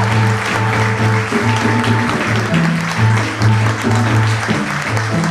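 Piano, bass and percussion trio playing, the bass repeating low notes about two to three times a second, with audience applause over the music.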